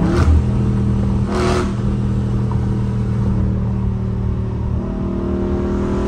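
Catless exhaust of a Dodge Charger Scat Pack's 6.4-litre HEMI V8 at highway speed, heard from inside the cabin with wind noise from the open window. Two short sharp bursts come in the first second and a half, then a steady drone, and the revs climb about five seconds in as the car accelerates.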